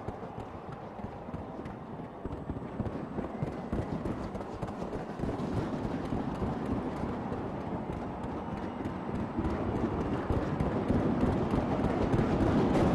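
Fireworks crackling, a dense rapid patter of small pops and bangs that grows louder over the second half.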